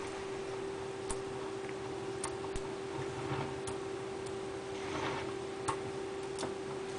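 Small neodymium magnet balls clicking as chains of them are pulled apart from a magnet-sphere structure: scattered sharp ticks, irregularly spaced about once a second.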